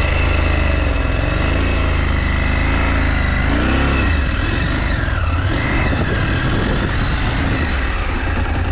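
KTM 890 Adventure's parallel-twin engine running at low road speed, its pitch rising and falling with the throttle, over a steady low rumble.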